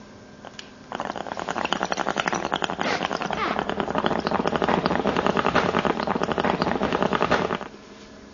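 Water pipe bubbling rapidly and steadily during one long inhalation of about six and a half seconds, starting about a second in and stopping abruptly near the end.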